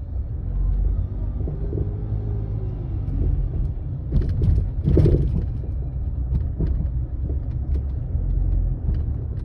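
Land Rover Freelander 2 driving over uneven asphalt: steady road rumble with scattered knocks from the rear suspension, the loudest about five seconds in. The owner traces the knock to a worn Kayaba rear strut (shock absorber).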